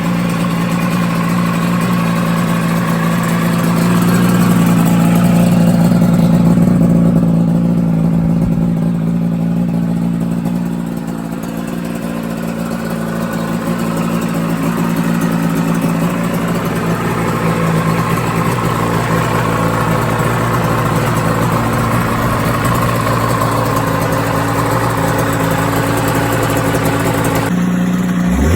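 Yamaha TZR250 3MA two-stroke parallel-twin engine running steadily just after start-up on a complete rebuild. It rises a little a few seconds in, then settles back to a steady idle.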